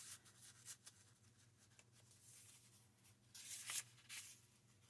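Quiet rustling and sliding of paper as the pages and tags of a handmade junk journal are handled and turned, with two brief papery swishes near the end.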